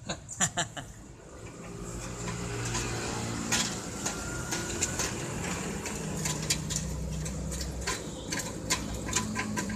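Irregular metallic clicks and taps of a hand tool working on a rusted car exhaust pipe, the loudest about half a second in, over a steady low hum.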